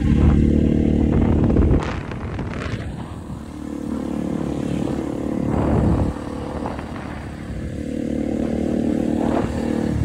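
Motorcycle engine running while riding. The throttle eases off sharply about two seconds in and again about six seconds in, and the engine builds back up after each.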